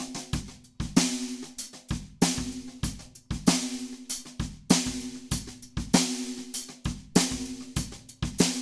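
Sakae 14 x 6.5" brass snare drum, tuned fairly loose and damped with an o-ring, played in a steady drum kit groove with hi-hats and kick drum. A loud snare stroke lands about every second and a quarter, with a short ring after each.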